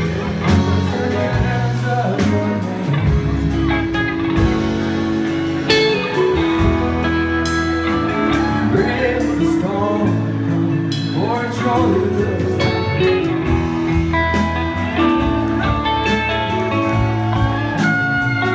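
Live rock band playing loud through a club PA: electric guitars and electric bass with a male lead vocal, heard from within the crowd.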